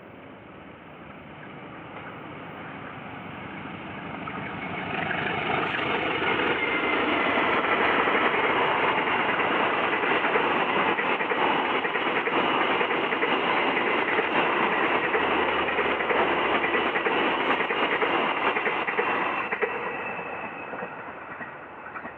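Diesel-hauled passenger train approaching and passing close by. The rumble builds over the first five seconds, then a long line of coaches rolls past with steady wheel noise on the rails, and the sound fades near the end.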